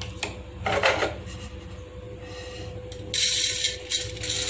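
Dry-roasted flattened rice flakes scraped about in a nonstick pan, with a few short scrapes and clicks in the first second. About three seconds in, the flakes are tipped out onto a steel plate: a loud, dense rustling hiss of dry flakes sliding and pattering onto metal.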